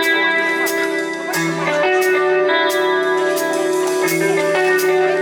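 Live band playing an instrumental intro: guitar melody over held chords, with regular drum and cymbal hits keeping a steady beat.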